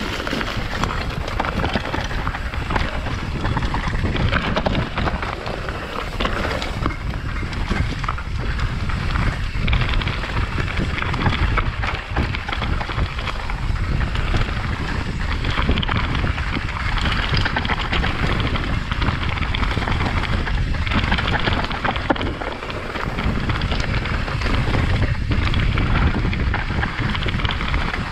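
Wind rumbling on a helmet camera's microphone during a fast mountain-bike descent, mixed with a constant clatter of knocks and rattles from the enduro bike and its tyres over rough trail.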